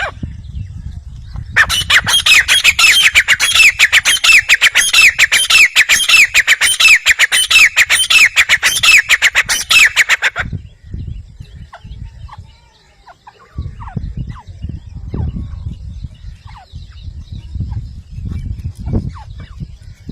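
Grey francolin calling: a loud, rapid run of sharp, downward-sweeping notes, several a second, that lasts about nine seconds and then stops abruptly. Fainter scattered calls follow over a low rumble.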